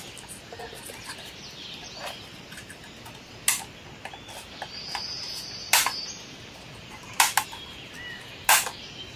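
Tan plastic parts of a snap-together toy building clicking as they are pressed together and handled, about five sharp clicks spaced a second or two apart.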